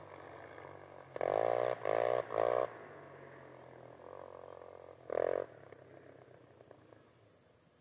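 Beagle hound baying on a rabbit track: three short bawls in quick succession about a second in, then one more about five seconds in.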